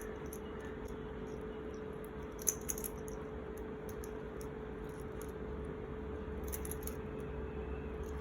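Small plastic parts of a GAN 11M Pro speedcube's core clicking as the clear pieces and GES nuts are taken off: a few light clicks about two and a half seconds in and again toward the end, over a faint steady hum.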